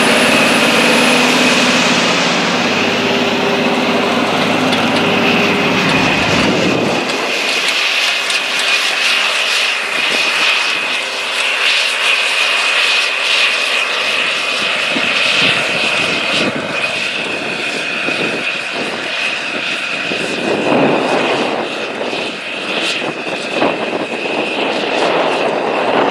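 A big John Deere four-wheel-drive tractor's diesel engine, first close by, then farther off pulling a chisel plow through the field, with a steady high whine and crackling noise over it. It grows fuller again as the tractor comes back toward the microphone near the end.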